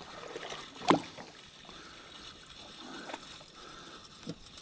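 Faint water lapping and trickling against a small boat's hull, with one sharp click about a second in and a softer one near the end.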